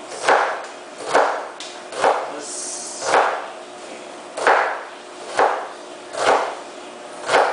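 Kitchen knife chopping an onion on a wooden cutting board: eight separate knocks of the blade hitting the board, roughly one a second.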